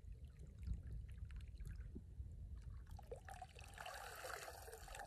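Water pouring and trickling off a wet fishing net as it is lifted out of a flooded rice field, starting about two and a half seconds in; before that only small splashes over a low rumble.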